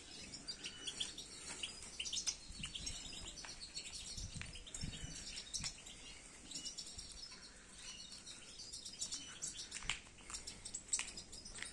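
European goldfinches chirping and twittering: many short, high calls scattered throughout.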